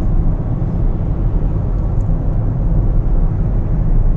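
Steady low rumble of road noise from moving traffic.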